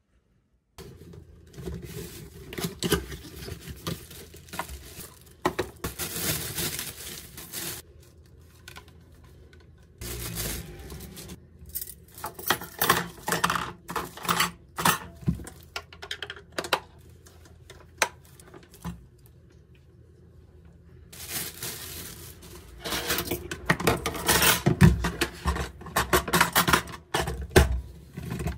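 Plastic packaging rustling and crinkling while a new hand mixer is unpacked, with clinks of its metal wire beaters and knocks of hard plastic parts on the counter, in irregular bursts.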